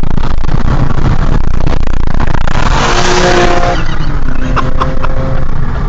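Car engines running hard at speed, heard through an open car window with heavy wind buffeting the microphone. About halfway through, a hiss swells and a steady engine note stands out for about a second.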